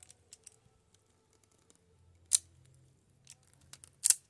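Hand coax stripping tool cutting a coaxial cable's outer jacket: two sharp snips, one about two seconds in and one near the end, with small clicks from handling the tool between them.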